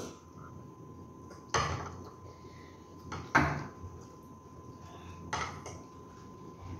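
Metal forks clinking against ceramic bowls as noodles are eaten, with three sharper knocks about a second and a half in, about two seconds later (the loudest), and again near the end.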